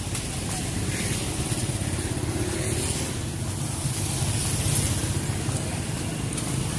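Motorbike street traffic: the engines of small motorbikes and scooters running and passing close by, as a steady low rumble with a hiss of road noise.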